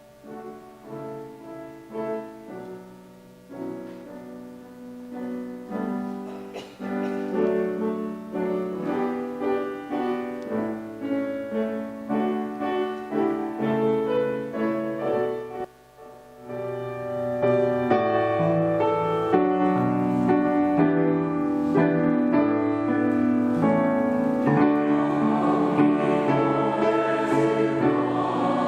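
A piano plays a slow introduction. After a brief pause about halfway through, a congregation sings a short sung prayer response together with the piano, louder and fuller.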